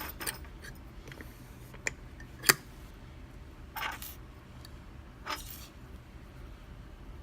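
Small metal clicks and light scrapes from a Thirard Trafic 6 dimple lock cylinder and lock-picking tools being handled. The loudest is a single sharp click about two and a half seconds in.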